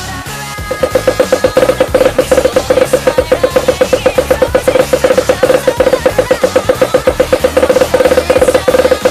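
Fast, even drum strokes, about eight a second, come in strongly just under a second in and keep going over recorded music with a steady low bass pattern.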